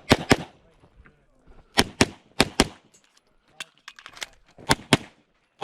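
Hudson H9 9mm pistol fired in quick pairs during a timed shooting stage: about nine sharp shots, in pairs a quarter second apart, with short pauses between the pairs.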